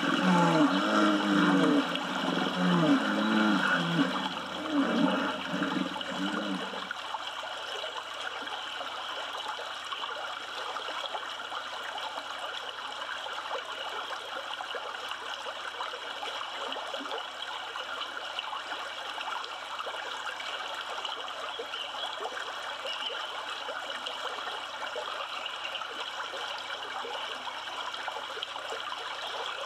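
River water flowing steadily over a shallow bank. For the first seven seconds a series of low, wavering calls sounds over it and then cuts off abruptly.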